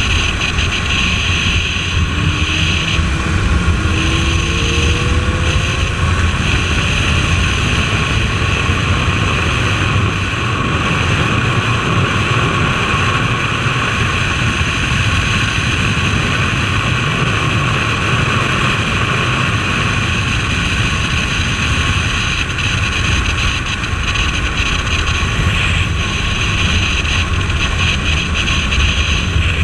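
Motorcycle on the move at speed, most likely the Suzuki Bandit 1250S's inline-four: a steady rush of wind on the microphone over the engine's low drone. A few short rising whines of engine pitch come in the first six seconds.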